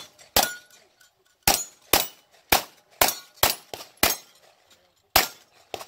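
A string of about ten 9mm gunshots from a B&T firearm, fired one at a time in quick, slightly uneven succession about half a second apart, with a longer pause shortly before the last two.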